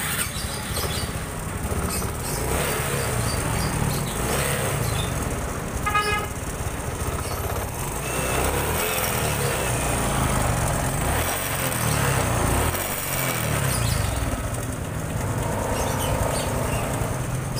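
Honda Supra 125 fuel-injected single-cylinder four-stroke engine running at idle, its beat uneven. It now holds an idle but still stumbles and limps slightly, a misfire the mechanic had put down to the cam chain.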